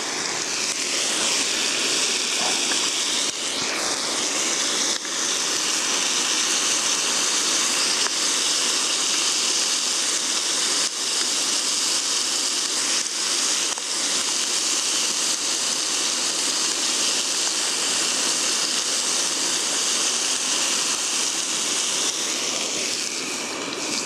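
Steady hiss of a Coleman Sportster II pressurized white-gas single burner running on a turned-up flame, with a pork steak sizzling in the pan on top.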